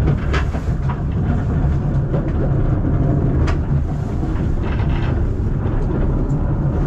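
Narrow-gauge tourist train carriage running along the track: a steady low rumble with a few sharp clicks and knocks.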